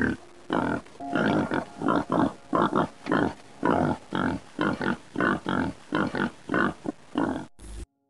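Pigs grunting while rooting in the soil: a quick run of short grunts, about two to three a second, that cuts off suddenly near the end.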